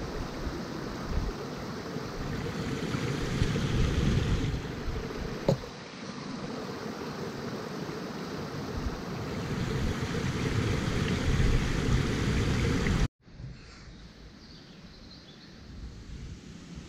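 Wind noise on the microphone mixed with a small stream trickling over stones. It cuts off abruptly about thirteen seconds in, leaving a quieter hiss.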